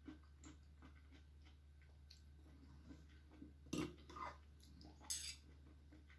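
Metal spoon and fork clinking and scraping against a ceramic bowl while eating, with two sharper clinks near the four- and five-second marks, over faint chewing.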